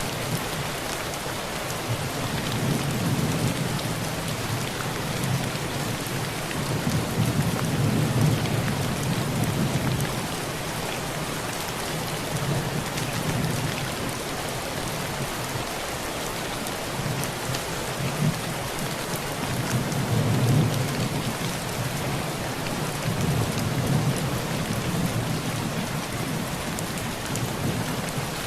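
Heavy rain drumming steadily on a tin roof, with low rolls of thunder swelling and fading several times, the strongest about a third of the way in and again past the middle.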